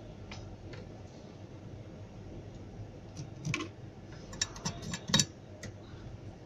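Scattered light clicks and taps of small hard objects: two faint ones near the start, a pair about three and a half seconds in, then a quick run of several louder ones around five seconds in, over a faint steady low hum.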